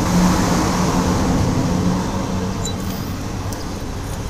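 Motor vehicle engine running in the background with a steady low hum, loudest just after the start and slowly easing off.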